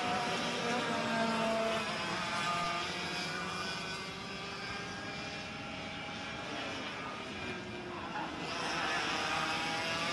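Several two-stroke racing kart engines running hard together, their pitches rising and falling as the karts brake and accelerate through the corners. The sound swells again near the end as karts come closer.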